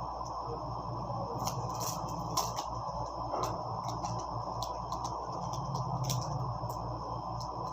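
Scattered soft clicks and crinkles of packaging and cards being handled, over a steady low background hum.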